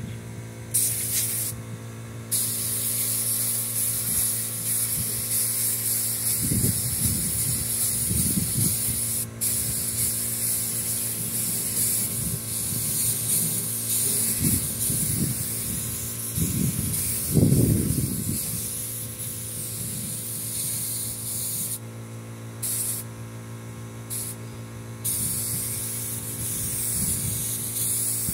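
Pneumatic spray gun hissing as it sprays sanding sealer onto plywood, the hiss cutting out briefly when the trigger is let go, twice near the start and three times about three-quarters through. A steady low hum runs underneath, with a few dull low thuds.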